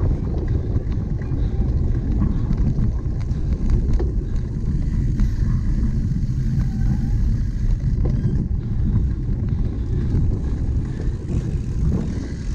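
Cyclocross bike ridden over rough race ground, picked up by a camera on the bike: a steady low wind rumble on the microphone with tyre noise, and scattered clicks and knocks as the bike jolts.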